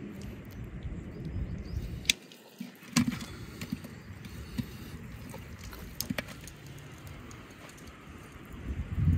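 Handling sounds as wire is twisted with pliers to close up a whole raw lamb on a wooden spit: a few sharp clicks and taps over a low, steady rumble.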